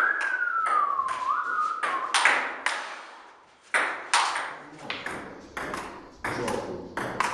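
Table tennis rally: a plastic ball clicking off paddles and the table top at an uneven, quick pace. A single high whistle-like tone falls in pitch over the first two seconds.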